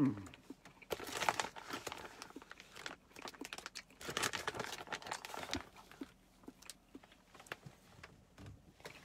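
Plastic food packaging crinkling and rustling as it is handled, in two bursts, one about a second in and one from about four to five and a half seconds, with small clicks and taps between. A brief falling tone sounds right at the start.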